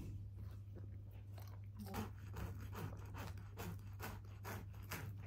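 Close-up eating sounds: food being chewed with a crunch, and a string of short irregular clicks and scrapes of a knife and fork against the plate, over a low steady hum.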